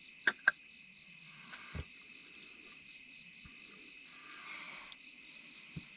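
Steady chorus of night insects, with two sharp crunches about half a second in as a bite is taken from a piece of crispy fried chicken, then soft chewing.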